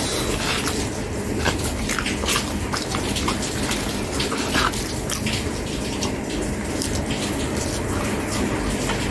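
Close-miked eating sounds: wet slurping and sipping off a spoon held over a bowl, with many small mouth clicks and smacks.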